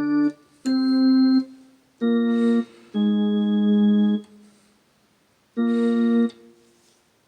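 Casio LK-222 electronic keyboard playing five short chords on a sustained, organ-like voice. Each chord is held for half a second to just over a second, its notes steady without dying away, and stops cleanly; the longest comes about three seconds in.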